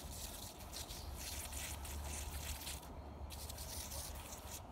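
Handheld pump sprayer's wand misting bleach solution onto a fabric fanny pack: a fine hiss in uneven spurts, broken off briefly about three seconds in, over a steady low hum.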